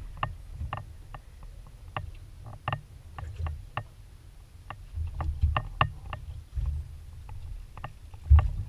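Water slapping and lapping against the hull of a small aluminium boat: low irregular thuds, the strongest near the end, with scattered sharp clicks and knocks.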